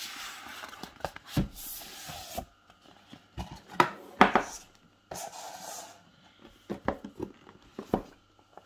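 Cardboard packaging being handled. The inner box slides out of its printed cardboard sleeve with scraping, rubbing hisses, and there are several light taps and knocks as the box is moved and set down on the table.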